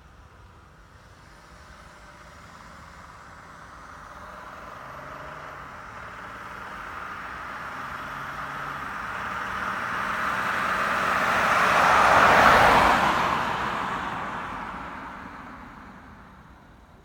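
A car passing by: its engine and tyre noise grow steadily louder, peak about three quarters of the way through, then fade away.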